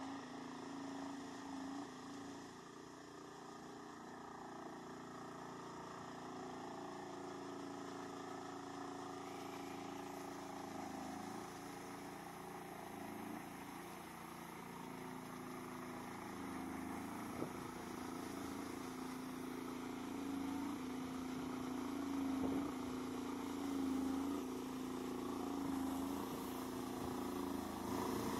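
Engine of a homemade all-terrain vehicle on large low-pressure tyres, running steadily under load as it wades through a pond, with water churned up by its wheels. The engine sound grows louder toward the end as the vehicle comes closer.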